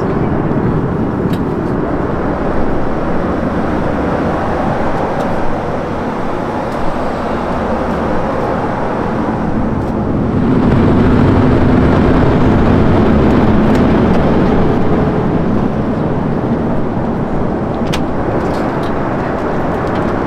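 Steady cabin noise of an Airbus A340-300 airliner: the drone of engines and rushing air heard from inside the passenger cabin. From about ten seconds in it grows somewhat louder for several seconds, with a low hum, then settles back.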